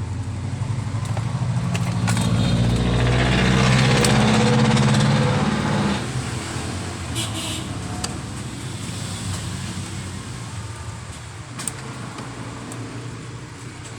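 Engine of a passing motor vehicle: it grows louder, peaks, then fades about six seconds in, leaving a lower steady hum.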